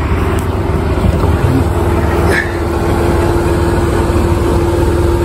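A vehicle engine idling: a steady low rumble with an even, fine pulse and a steady hum over it.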